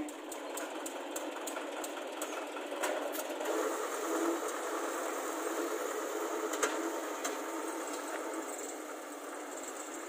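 Deutz 3006 tractor, an air-cooled two-cylinder diesel, running steadily while it pulls a rear-mounted rotary mower through standing grass. Light regular ticks sound over the first three seconds.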